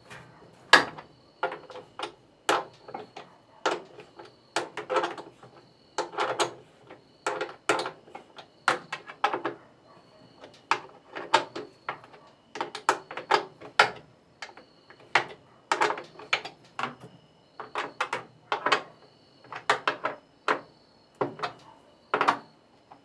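A jack being worked stroke by stroke to pull out a washing machine's basket: a long run of metallic clicks and knocks, about one or two a second.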